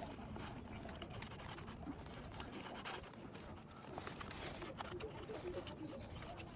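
Faint scattered clicks and taps of small motorbike parts being handled, over low background noise, with a few faint bird calls.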